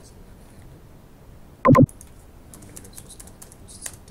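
A sharp, loud click about a second and a half in, then a quick run of light computer-keyboard key taps over the last second and a half as digits are typed.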